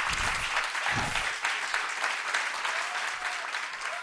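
Audience applauding, gradually dying down.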